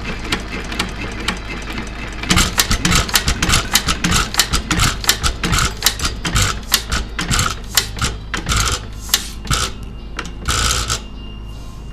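United 2.5 HP hit-and-miss engine coasting down after being shut off: a run of sharp mechanical clicks from its valve gear and igniter, two or three a second, with short puffs among them. The sound dies away near the end as the flywheels stop.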